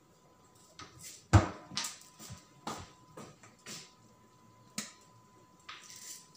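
Scattered knocks and clicks of kitchen items being handled, the loudest a dull thump about a second and a half in. Near the end comes a fast run of sharp, scratchy clicks as black pepper is ground over the cooking pot with a hand pepper grinder.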